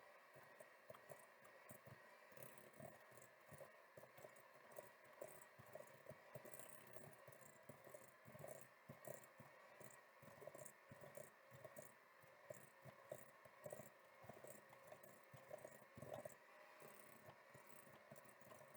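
Electric mixer blending cookie dough of creamed butter, sugar, eggs and vanilla, heard faintly as a steady hum with irregular light clicks and knocks.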